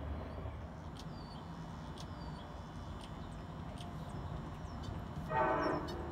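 Train rumbling steadily, with one short blast of a train horn's chord about five seconds in.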